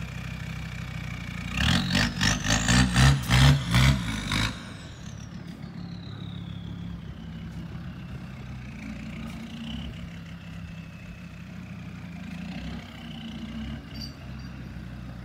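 Land Rover Td5 five-cylinder turbodiesel engine revving hard in several quick blips, then dropping back to a steady lower running note as the vehicle pulls away. A high whistle falls slowly in pitch after the revving.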